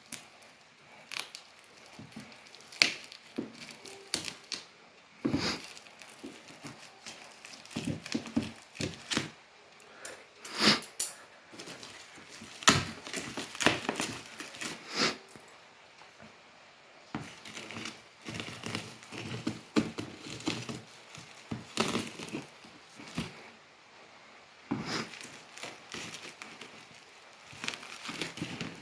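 Packaging being opened and handled: irregular crinkling and tearing with scattered sharp clicks.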